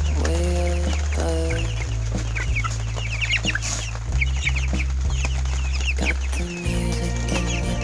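A crowd of poultry chicks peeping, many short high cheeps overlapping without pause. Background music with a steady bass line plays under them.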